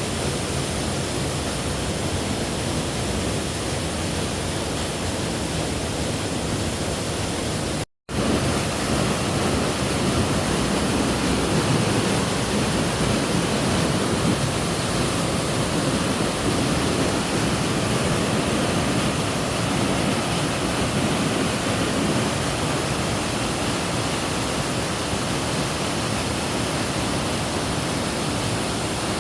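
Waterfall: a steady, even rush of falling water, broken by a momentary silent cut about eight seconds in.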